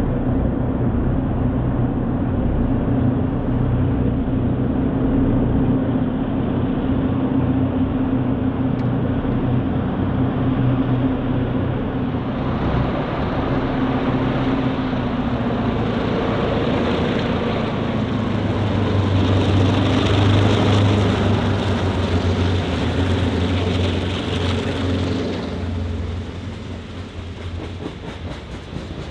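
Norfolk Southern EMD GP38-2 diesel locomotives passing, their engines running with a steady drone. From about halfway, clattering wheel-and-rail noise builds, loudest about two-thirds through, then drops away sharply near the end.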